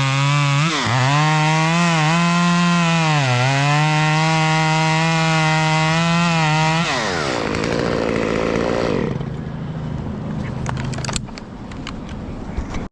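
Chainsaw running at full throttle, its pitch dipping twice as it loads up in the cut. About seven seconds in the throttle is released and it winds down to a lower, rougher running sound, with a few sharp clicks near the end.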